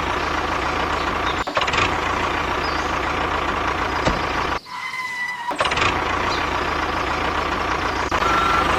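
A heavy vehicle engine running steadily, with a short break about halfway through. A reversing beep sounds near the end.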